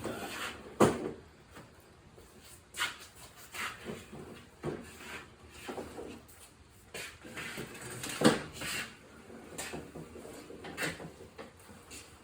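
Scattered knocks and clunks of objects being picked up and handled, about a dozen at uneven intervals; the loudest come about a second in and about eight seconds in.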